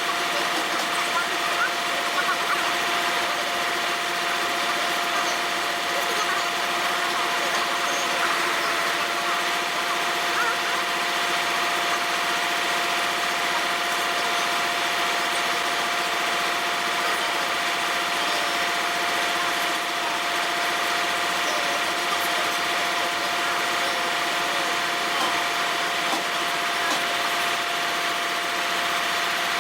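Heavy machine's engine running steadily, with a constant whine over it.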